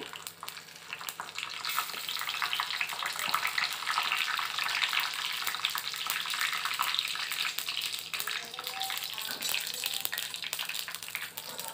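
Hot oil sizzling and crackling in a small iron kadai as dried red chillies fry with cumin and mustard seeds for a tempering. The sizzle swells about a second in and then holds steady, with many small crackles through it.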